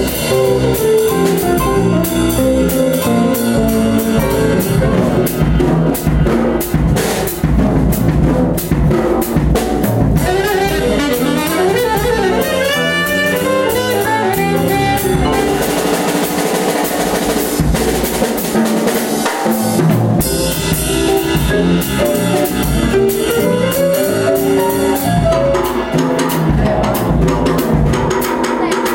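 Chromatic 6/6 harp plucked in a jazz jam over a backing track with a drum kit.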